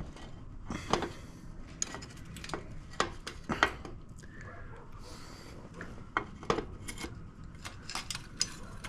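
Scattered metallic clinks and knocks of bicycle parts and hand tools as a crank arm is fitted onto the new bottom bracket spindle.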